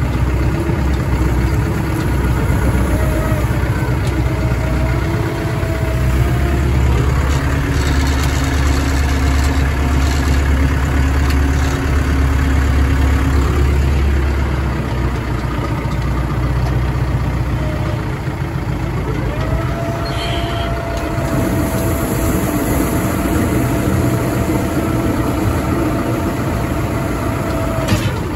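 Heavy farm machinery running steadily with a loud engine hum. A thin whine rises about two-thirds of the way in, holds, and stops near the end.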